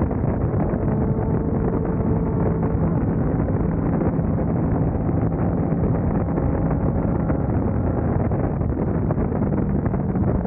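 Sport motorcycle's engine running at a steady cruising speed, with heavy wind rush on the onboard camera's microphone.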